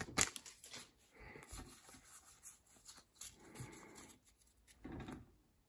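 Faint rustling and rubbing of Pokémon trading cards and their torn booster-pack wrapper being handled, with a few soft clicks.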